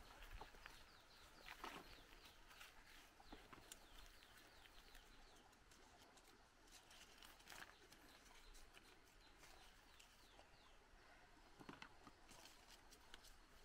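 Near silence: faint outdoor ambience with faint bird chirps and a few light handling clicks.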